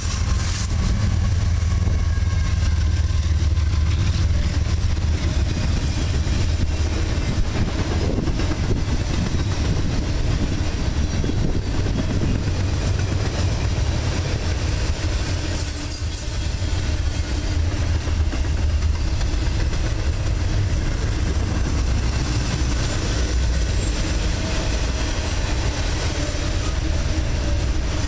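Double-stack intermodal freight train rolling past: a steady rumble of steel wheels on the rails with some clickety-clack, heavier in the first several seconds as the trailing diesel locomotives go by.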